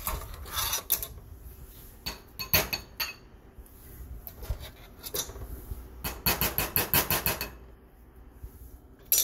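Wire potato masher clanking against a metal pot while mashing potatoes, in short groups of sharp metal strikes, with a quick run of them about six seconds in. A single sharp clink comes near the end.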